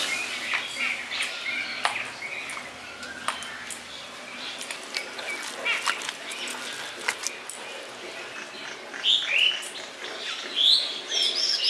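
Small birds chirping in short, downward-sweeping calls, loudest near the end. Under them are scattered light clicks and clinks, fitting bangles knocking and a hand working a grated-cabbage batter in a plastic bowl.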